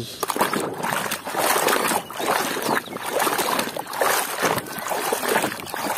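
Muddy water splashing and sloshing in a plastic basin as a plastic toy truck is swished and scrubbed through it by hand, in uneven, repeated splashes.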